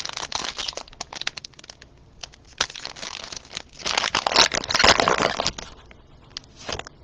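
A foil trading-card pack wrapper crinkling and tearing as it is opened and the cards handled, in irregular crackly bursts that are loudest from about four seconds in and die away near the end.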